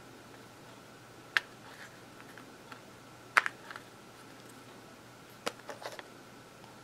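A few sharp clicks and taps of a Beretta 92FS pistol's grip panel and frame being handled as the panel is worked off. One click comes about a second and a half in, the loudest near the middle, and a small run of clicks near the end.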